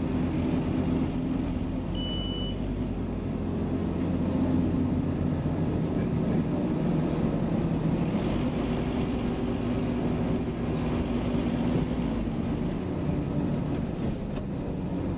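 Scania Omnicity single-deck bus engine running under way, its pitch shifting up and down with speed and gear. A single short high beep sounds about two seconds in.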